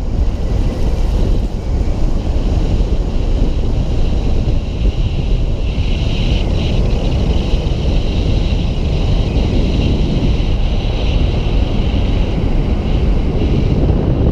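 Wind buffeting the microphone: a loud, steady low rumble with a thin, steady high hiss above it.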